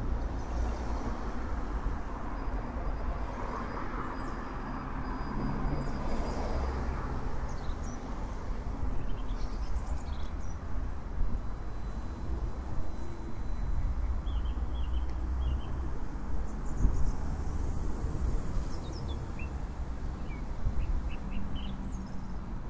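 Outdoor field-recording ambience: a steady low rumble with small birds giving short chirps now and then through it.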